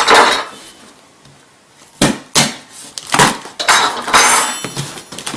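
Cardboard box flaps being pulled open, scraping and rustling against each other: one loud scrape at the start, then a run of scrapes and rubs from about two seconds in.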